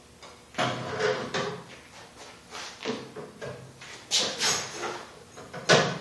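Plastic engine fuel tank being set down and shifted about on an aluminium mounting plate: a series of knocks and scrapes, the loudest near the end.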